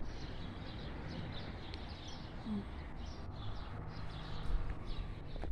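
Small birds chirping repeatedly over a low, steady background rumble.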